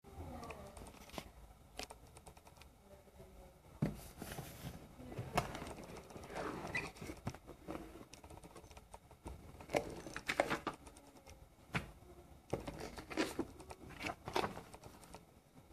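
Cardboard product box being opened and handled by hand: the lid and paper inserts rustle, with scattered light taps and clicks of fingers on cardboard.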